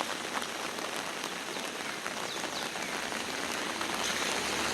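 Moderate rain falling steadily, an even hiss with scattered drop ticks; a faint low rumble comes up near the end.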